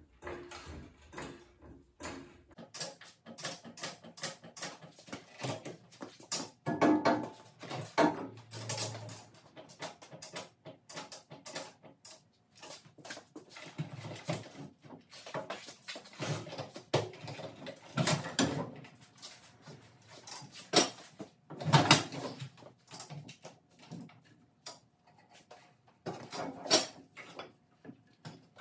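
Irregular metal knocks, clunks and scrapes from a VW air-cooled engine on a floor jack as it is rocked and pushed against the transaxle, in bursts with pauses between. The engine will not seat because its 12-volt flywheel is too big for the 6-volt transaxle's housing.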